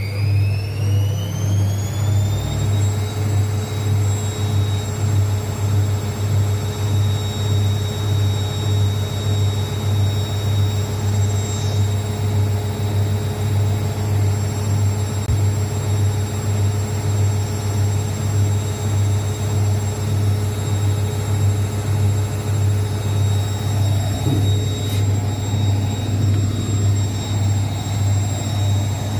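Zanussi ZWSE680V front-loading washing machine in its final spin: the motor whine climbs for the first few seconds as the drum reaches top speed, then holds a steady high whine over a constant low hum from the spinning drum. The machine's shock absorbers have just been repaired.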